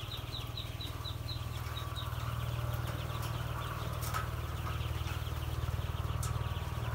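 A flock of three-day-old Muscovy ducklings peeping continuously, many short, high, falling cheeps overlapping, over a steady low hum.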